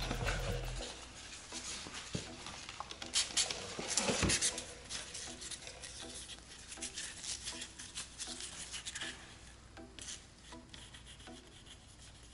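Rubbing, scuffing and handling sounds from gloved hands getting set to wet sand a scratch on a car door's paint, with a busier cluster of scrapes about three to four seconds in.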